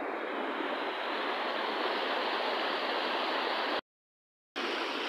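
A steady rushing noise, broken by a sudden drop to total silence for under a second near the end.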